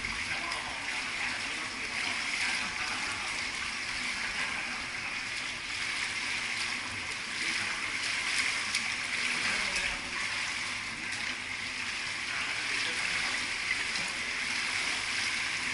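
Steady rushing of running water in a swimming pool, with light splashing from people wading through it.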